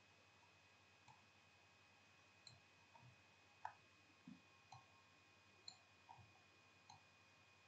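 Faint clicks of a computer mouse, about nine scattered irregularly over several seconds, over a faint steady high-pitched hum.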